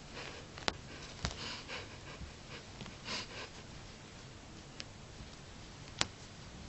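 Bengal cat rolling and squirming on carpet: faint, short rustles with a few sharp clicks, the loudest about six seconds in.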